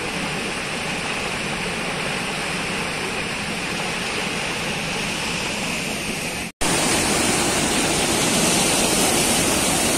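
Flooded river pouring over a low dam's spillway in a steady rush of water. About two-thirds through there is a split-second dropout, then a louder rushing of the swollen river churning through rapids over rocks.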